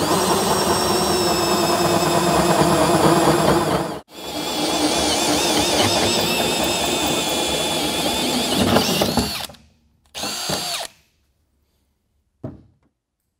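Drill turning a 4-inch hole saw at slow speed, grinding through the steel floor of a pickup bed with a whining tone over it. It cuts out for a moment about four seconds in, runs on until the hole is through at about nine and a half seconds, then gives one short burst, followed by a single click near the end.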